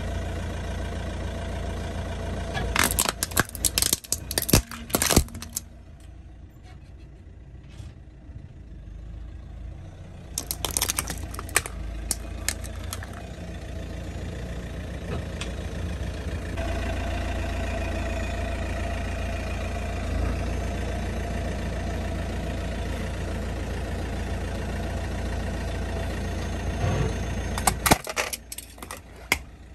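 A car engine running steadily as the car's tyre rolls over plastic toys, with bursts of cracking and crunching plastic about three to five seconds in, again around eleven to thirteen seconds, and near the end.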